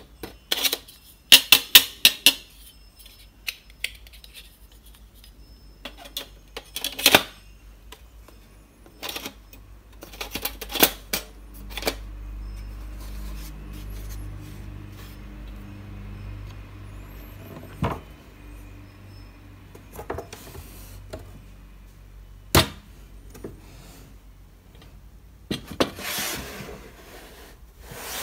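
Hands handling a beechwood table easel box with a thin aluminium-lined drawer: scattered clicks, taps and light metallic rattles, some in quick clusters, with a longer sliding rasp near the end as the drawer is pushed shut.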